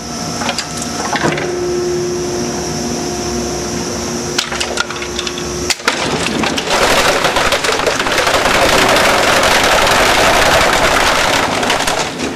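Cumberland CXS 1200 shredder's knife rotor chopping heavy-duty nylon buckets. Sharp cracks of breaking plastic over the first few seconds with a steady tone under them, then from about seven seconds a dense, loud rattle of rapid small cracks as the pieces are cut into chips.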